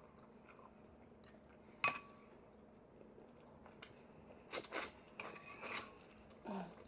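A fork clinks once against a dish about two seconds in, with a short ring. A cluster of short scrapes and cracks follows near the end as meat is picked out of king crab legs.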